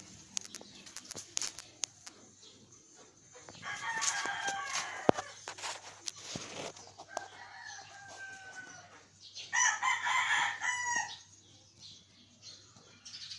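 Rooster crowing twice, about four seconds in and again near ten seconds, each call lasting about a second and a half, with scattered sharp clicks between.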